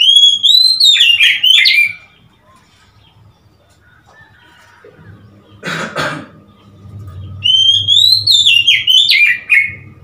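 Oriental magpie-robin singing two loud whistled phrases, the first at the start and the second about seven seconds in. Each phrase is a rising whistle breaking into quick falling notes. A brief noise comes about six seconds in, between the phrases.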